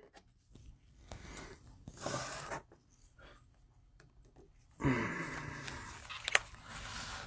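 Plastic cello-wrapped trading card packs rustling and crinkling as gloved hands handle and straighten the stacks, in short soft bursts. A brief low voice sound comes about five seconds in, and a single sharp tap near the end.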